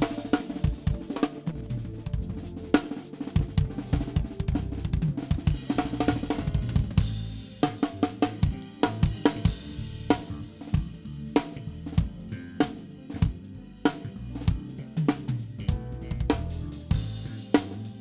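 Live drum kit played with rapid kick, snare, hi-hat and cymbal hits, over a bass guitar line, during a band sound check. A cymbal wash swells about midway through.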